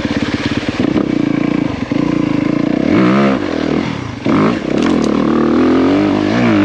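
Honda CRF250R's single-cylinder four-stroke engine revving up and down under throttle on a hill climb, its pitch rising and falling several times as the rear wheel spins for traction on wet leaves and mud.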